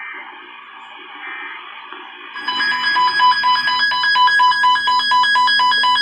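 Weather radio receiver sounding its alert alarm for a severe thunderstorm warning: a loud electronic beep that pulses rapidly. It starts about two and a half seconds in and stops at the very end, after quieter radio audio.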